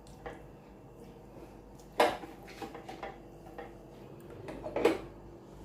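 Hands rubbing spice marinade onto raw fish pieces in a dish: soft handling sounds with a sharp clink of the dish about two seconds in, and a few lighter knocks.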